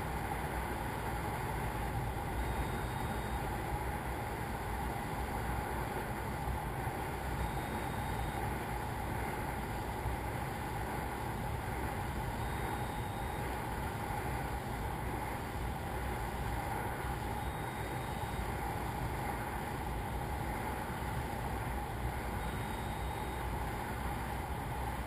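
Steady rushing noise picked up by the balloon capsule's onboard camera microphone at high altitude, with a faint short tone repeating about every five seconds.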